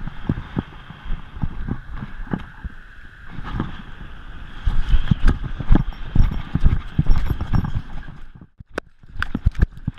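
A Gordon Setter's paws thudding in a quick, uneven rhythm on wet sand as she runs, picked up close by a camera strapped to her collar, which jolts with each stride. The footfalls grow heavier and louder about halfway through, then break off briefly near the end.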